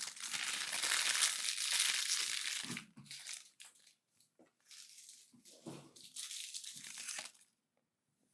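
Crinkling and rustling of something being handled, a continuous stretch of about three seconds followed by shorter bursts with a few light knocks, stopping about seven and a half seconds in.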